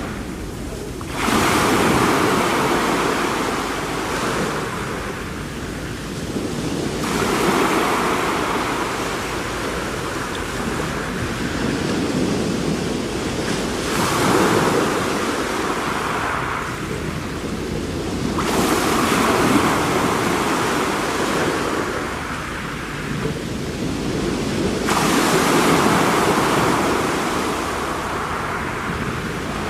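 Sea waves washing onto a shore, the surf swelling and falling away in slow surges about every six seconds.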